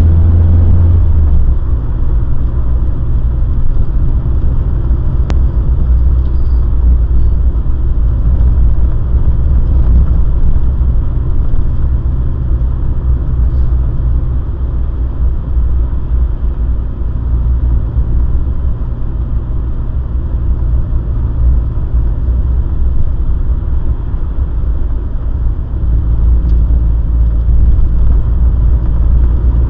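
Morris Minor Traveller's four-cylinder engine and road noise heard from inside the car on the move: a steady low rumble whose engine note drops about a second in and shifts a few more times along the way.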